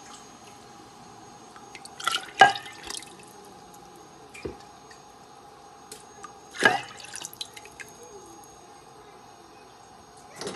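Thin kadhi liquid (yogurt, gram flour and spices) splashing and dripping in a cooking pot, with a few separate plops, the loudest about two and a half seconds in and another near seven seconds, over a steady hum.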